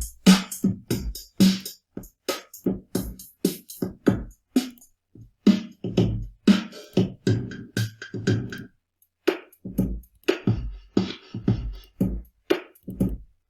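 Electronic drum kit presets in Ableton Live auditioned: separate sampled drum hits, deep kick drums mixed with short bright hits, in a loose, uneven beat that stops just before the end.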